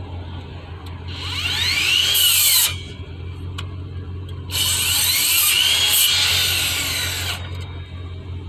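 Bauer brushless miter saw motor triggered twice, each run a couple of seconds long: a whine that rises as the blade spins up and then falls away before it cuts off.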